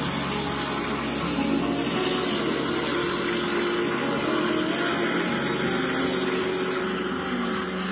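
Electric heat gun running with a steady hiss of blown air while it heats a plastic car bumper.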